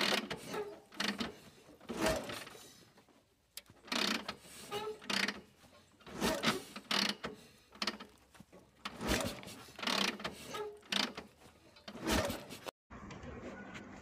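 A cat rolling and wriggling on its back on a stone-tiled floor, its fur and body rubbing on the tiles in a string of short rasping, scraping noises, about one a second. Near the end they break off suddenly.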